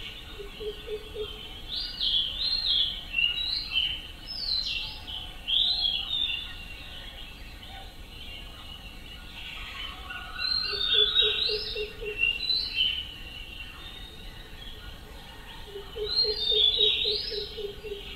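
Birds chirping and calling in bunches of quick high falling notes, coming in three spells. A low, rapid pulsing call of about eight pulses a second sounds three times underneath.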